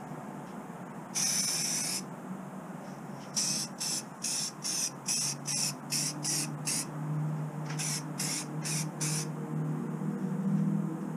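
Aerosol spray can of clear lacquer hissing: one longer spray of nearly a second, then a quick string of about nine short bursts, then four more, as the third and final coat goes onto small plastic model parts.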